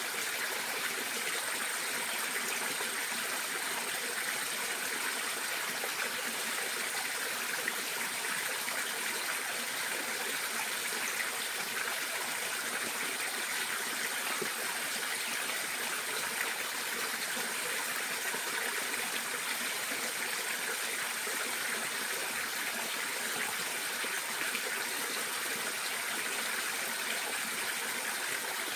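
Steady rush of running water, with a thin, high, unbroken-sounding whine above it that drops out briefly a few times.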